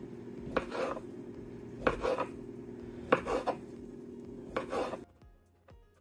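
Kitchen knife chopping baked bratwurst on a wooden cutting board: four chopping strokes about a second and a quarter apart. A steady low hum runs underneath and cuts off suddenly about five seconds in.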